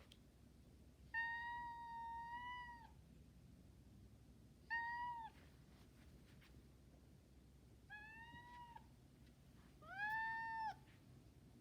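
Pet cat giving four honking meows, each held on a steady pitch. The first is the longest, nearly two seconds, and the other three are short.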